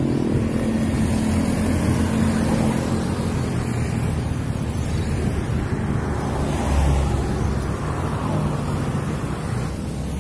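Road traffic passing close by: a steady tyre and engine rush, with an engine note fading away in the first couple of seconds and a louder low rumble of a passing vehicle about seven seconds in.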